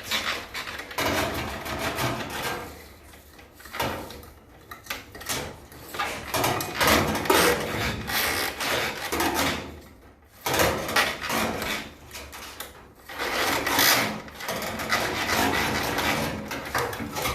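A brush scrubbing the wet blower fan of a ductless mini-split air conditioner, loosening mold residue and dust. It goes in several long stretches of rapid scraping strokes with brief pauses between them.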